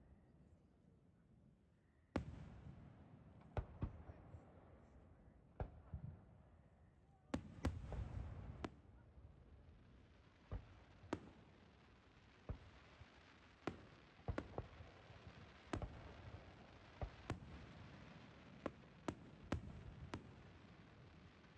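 Aerial fireworks shells bursting some way off: about twenty sharp bangs at uneven intervals with low rumbling between them, starting about two seconds in.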